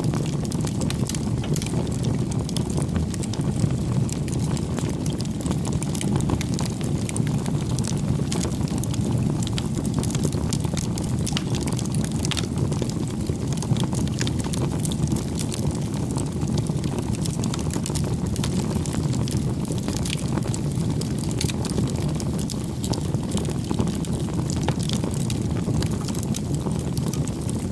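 Campfire burning: a steady low rumble of flames with frequent small crackles and pops of burning wood.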